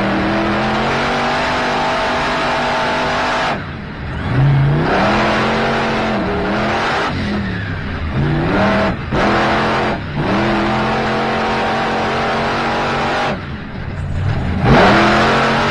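Monster truck's supercharged V8 engine heard from inside the cab during a competition run, held at high revs. The throttle is lifted twice, about four seconds in and near the end, the pitch falling sharply before it revs back up, with smaller dips in between.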